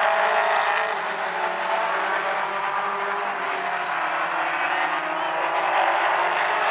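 Mini stock race cars' engines running hard together as the pack laps the track, a steady blend of several engine notes.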